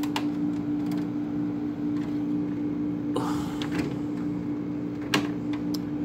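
Friedrich Chill 6,000 BTU window air conditioner running in cooling mode, its LG compressor and fan motor making a steady hum with a constant tone. A few sharp clicks and a brief rustle come from a hand handling the plastic front grille.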